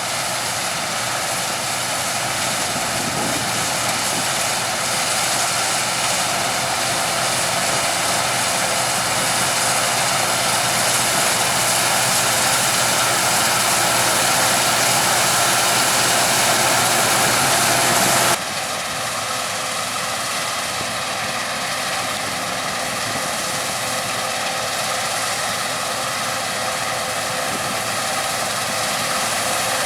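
Harvest machinery running steadily with a loud, even engine and fan drone. About 18 seconds in it changes abruptly to a slightly quieter drone.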